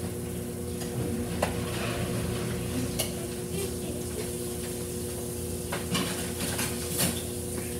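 Dishes and cutlery clattering in a kitchen sink, with a few sharp clinks, over a steady hum.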